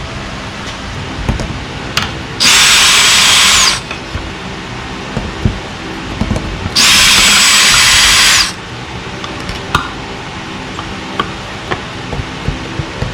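Power drill backing out the mounting screws of an RV's 30 amp power inlet, in two steady runs of about one and a half to two seconds each, with small clicks of handling between them.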